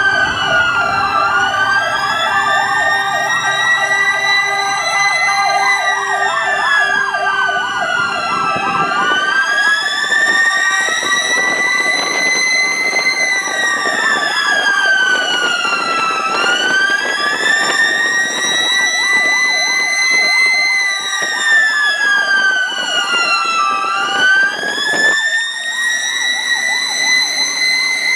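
Several ambulance sirens sounding together: a loud slow wail that rises and falls about every seven and a half seconds, with a fast warbling siren beneath it that cuts out abruptly about 25 seconds in.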